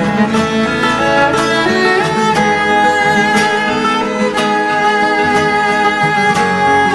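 Background music with fiddle and guitar playing a steady, country-style tune.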